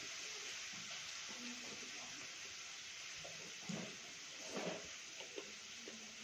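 Eating sounds from a man eating rice by hand: fingers mixing rice on a steel plate and chewing and mouth smacks, with a couple of louder smacks a little under four and about four and a half seconds in, over a steady hiss.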